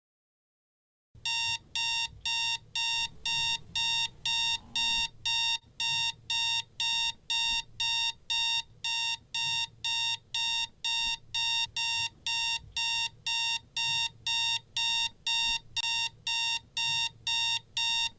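Electronic alarm clock beeping: rapid, evenly spaced high-pitched beeps, about two and a half a second, starting about a second in after silence.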